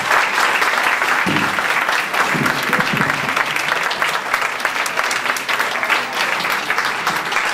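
Seated audience applauding steadily: a dense, sustained patter of many hands clapping.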